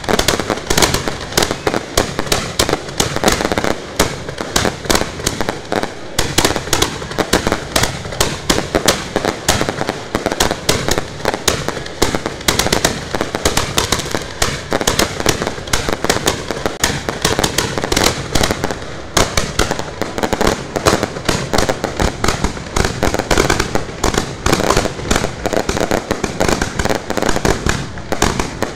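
Fireworks launched from ground racks a few metres away: a dense, unbroken barrage of bangs and cracks, many per second.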